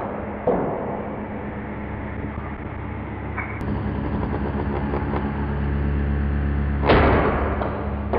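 A table-mounted router running steadily, its pattern bit cutting maple guided by a template jig. A sharp knock comes about half a second in and a louder crack about 7 s in.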